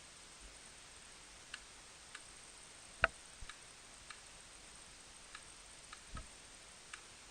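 Scattered sharp clicks and taps, about ten at irregular intervals over a faint hiss, the loudest about three seconds in.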